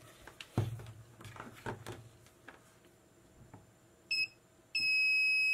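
Inductive short locator's buzzer beeping: a short high beep about four seconds in, then a longer steady beep of the same pitch near the end, the tone it gives when its probe picks up the current in the shorted track. Before it, light knocks and clicks as the circuit board is handled on the bench.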